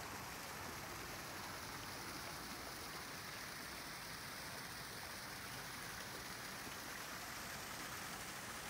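Steady rushing and splashing of water from a backyard pool and spa, the spa's water churning.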